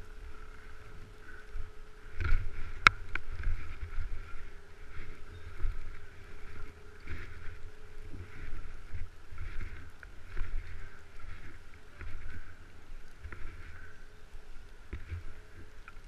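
Uneven wind and handling rumble on an action camera's microphone as a skier goes down in the snow, with one sharp knock about three seconds in.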